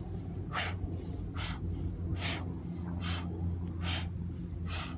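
A man's short, forceful breaths, about one every second, in rhythm with fast alternating knee lifts while holding a kettlebell, over a steady low rumble.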